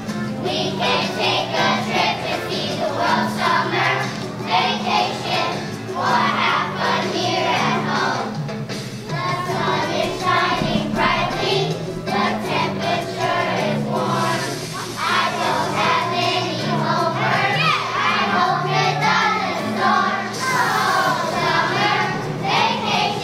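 A large children's choir singing together over instrumental accompaniment with a steady, moving bass line.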